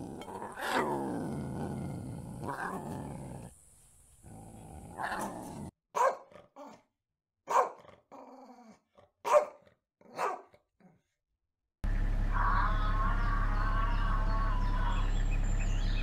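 A lioness growls in a low, falling voice for the first few seconds. Then a dog barks sharply about four times. Near the end a loud, steady low hum sets in.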